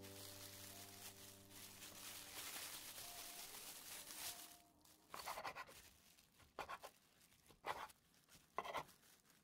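Faint rustling of a bamboo rolling mat under gloved hands while the last music notes fade. Then, from about five seconds in, a knife cuts through a seaweed-wrapped gimbap roll onto a wooden cutting board in about five short crunchy strokes, roughly a second apart.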